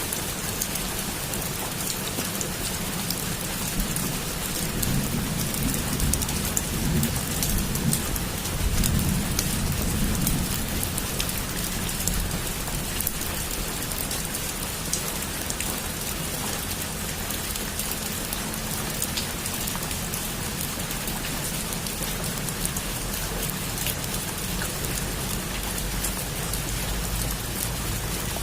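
Heavy rain falling steadily, with a low rumble of thunder swelling through the first third and fading away.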